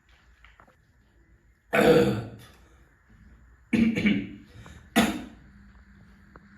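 A person coughing three times, the first about two seconds in and the last two about a second apart.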